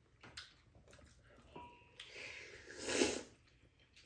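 Table eating sounds: a utensil clicks against a dish with a brief ring, then a loud slurp from a spoonful of food about three seconds in.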